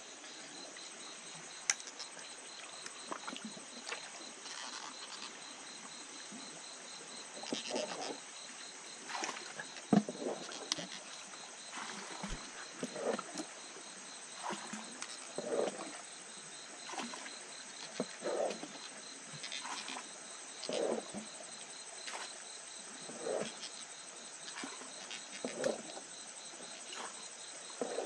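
Crickets and other insects chirring steadily in a night chorus. From about eight seconds in, a short lower sound repeats roughly every second and a quarter.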